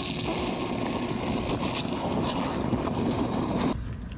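Wet/dry shop vac sucking muddy water out of a hole through its hose: a rushing, slurping sound of water and air over the motor's steady whine. It cuts off abruptly about three and a half seconds in.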